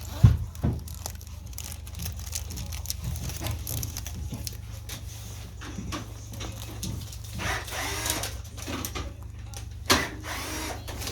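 Ski repair shop room sound: a steady low machine hum with scattered clicks and clatter, and a loud knock just after the start and another near the end. Faint voices in the middle.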